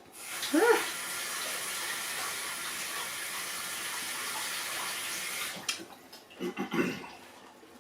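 A water tap running steadily, shut off after about five and a half seconds.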